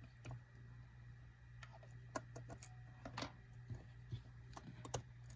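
Faint, scattered clicks and taps of small phone parts being handled as an iPhone 5c's logic board is fitted back in, over a steady low hum.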